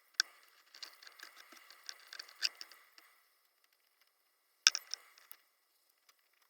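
Plastic wire loom being handled on an engine wiring harness: a sharp click, then about two seconds of crackly rustling with small clicks, and another sharp click about two-thirds of the way through.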